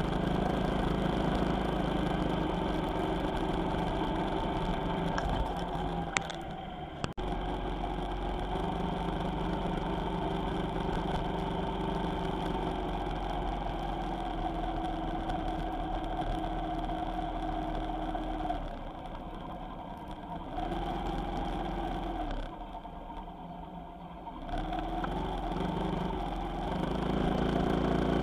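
A vehicle engine running on the move, its note shifting a little with speed, with a few short quieter stretches.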